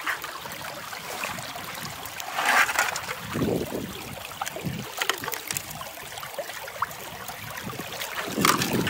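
River water rushing and splashing through a small creek sluice box set in the current, a steady wash with a few louder surges, about two and a half seconds in and again near the end.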